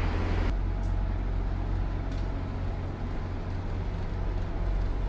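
KiHa 47 diesel railcar's engine idling, a steady low hum heard inside the passenger cabin. A higher hiss cuts off abruptly about half a second in.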